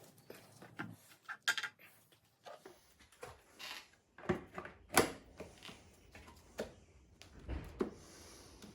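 Scattered light knocks, clicks and brief rubbing from a hand tool and parts being handled during a test fit, the sharpest click about five seconds in.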